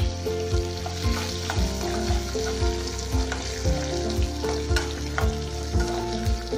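Curry leaves, lentils and dried red chillies sizzling in hot oil in a kadai, stirred with a spatula that scrapes and ticks against the pan. Background music with a steady beat plays under the sizzle.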